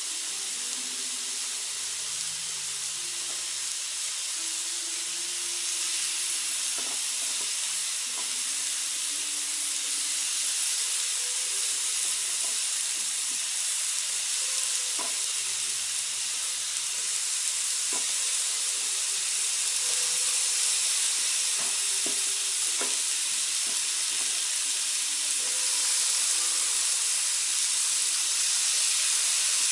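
Cubes of raw pork neck searing in a preheated cast-iron kazan: a steady, loud frying sizzle. It grows gradually louder as more pieces are dropped in, with a few faint clicks among it.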